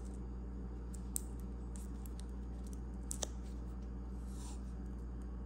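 A few faint clicks from a roll of electrical tape and a small plastic tool being handled, about a second in and again around three seconds, over a steady low hum.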